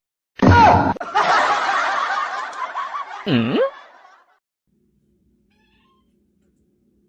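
A short loud sound, then about three seconds of laughter with a brief swooping tone near its end, then near silence.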